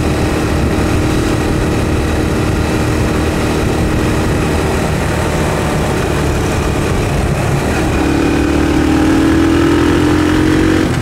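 Motorcycle engine running steadily while riding along city streets, with road and wind noise. About eight seconds in, the engine note grows stronger and rises slightly as the bike speeds up.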